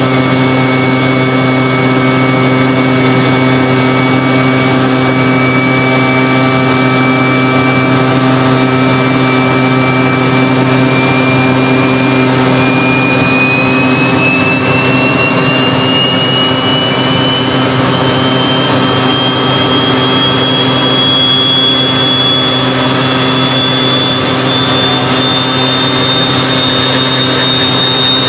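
Homemade turbocharger-based jet engine running loudly, a steady roar with a high turbine whine on top. About twelve seconds in, the whine starts climbing steadily in pitch as more fuel is fed in and the turbine spools up.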